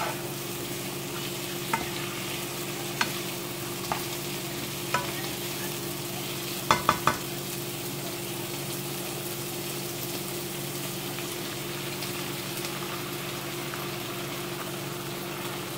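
Chopped jackfruit and onions sizzling as they sauté in a nonstick pan, over a steady low hum. A plastic spatula stirring them clicks against the pan now and then, loudest in a quick cluster about seven seconds in.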